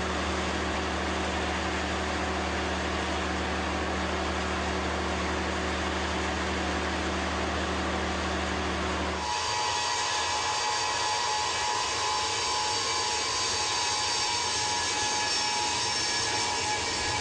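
Steady jet aircraft engine noise. About nine seconds in it switches abruptly to a different engine sound with a higher, steady whine.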